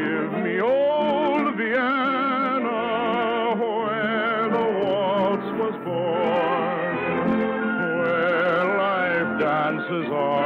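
Operetta singing with strong vibrato over an orchestra, a Viennese waltz song. It has the dull, narrow-band sound of an old radio recording.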